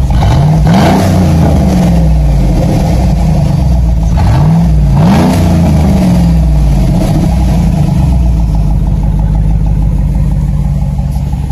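Car engine revved twice, each time rising and falling back, then idling, its exhaust let out unmuffled through an open electric exhaust cutout on the 2.5-inch pipe.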